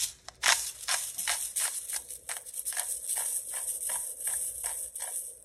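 A salt grinder being twisted over a pan, giving a quick run of gritty clicks, about four a second.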